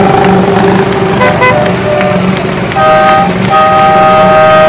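Horns on miniature parade trucks tooting: a few short toots, then a longer chord-like blast held for about two seconds near the end, over the steady hum of small engines running.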